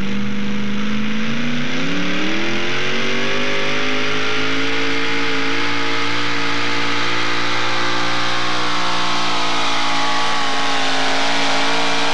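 Modified four-wheel-drive pulling truck's engine under full load while dragging a weight sled. It climbs steeply in revs about a second or two in, then holds at high revs, sagging slightly near the end.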